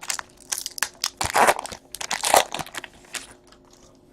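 Crinkling of a trading-card pack's foil wrapper and cards being handled: a run of irregular rustles and crunches, the loudest about halfway through, dying away near the end.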